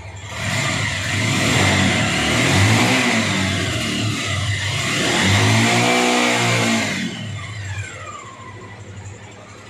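Bajaj Pulsar 180 single-cylinder four-stroke engine, with its broken valve rocker replaced, revved twice and then settling back toward idle about seven seconds in.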